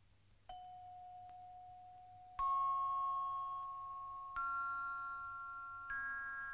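Film score of slow, single bell-like struck notes, four of them, each a step higher than the last and each left ringing under the next. The second note is the loudest.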